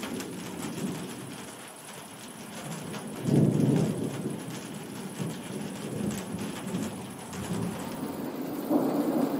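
Thunder rumbling over steady rain. One loud low roll comes about three seconds in and another near the end, with rain pattering throughout.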